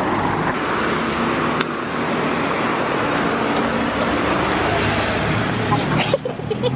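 Steady road-traffic noise and the low, even running of a passenger jeepney's engine as people climb aboard, with a few sharp knocks near the end.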